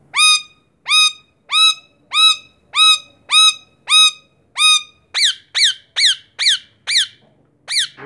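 Male Indian ringneck parakeet (rose-ringed parakeet) calling in a series of short, high-pitched squawks: about eight evenly spaced rising calls, then a quicker run of about six falling calls over the last three seconds.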